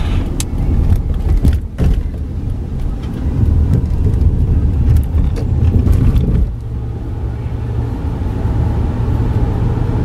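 Car interior road noise while driving at speed: a loud, uneven low rumble of engine and tyres on the road. About six and a half seconds in, the rumble becomes steadier and a little quieter.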